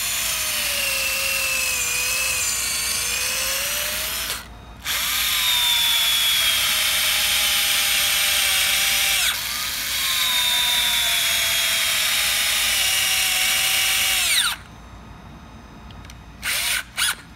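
Electric drill running in three long runs, its motor whine wavering and sagging under load as it bores holes in and drives screws into the stroller's metal frame. Two quick blips of the trigger follow near the end.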